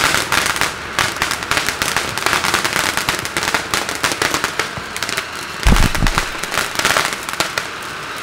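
Several ground fountain fireworks hissing and spraying sparks, with rapid crackling pops throughout and a heavier low thump about six seconds in.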